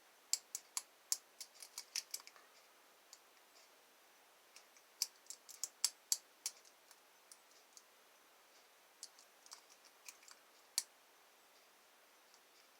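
Lock pick and tension tool working the security pins of an Abus 888 six-pin lock core: light metallic clicks and ticks in three irregular bursts, with a few seconds of quiet between them.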